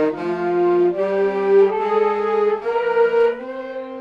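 Several saxophones playing a slow passage together in parts, several notes sounding at once and changing step by step about every half second. The playing gets softer near the end.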